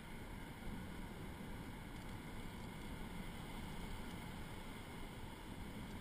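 Steady low rumbling wind noise buffeting the camera's microphone.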